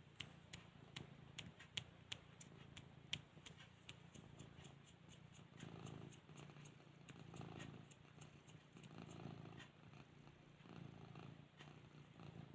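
Domestic cat purring softly, swelling and fading with each breath. A fast run of faint ticks sounds over the purr for the first several seconds.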